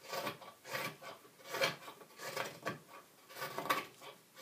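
Twca cam, a long-handled hooked crooked knife, slicing shavings out of green cherry wood in a string of quick rasping pull-cuts, a little more than one a second.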